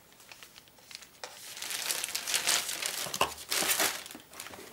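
Clear plastic bag crinkling and rustling as it is handled inside a cardboard box, starting about a second in, with a soft knock about three seconds in.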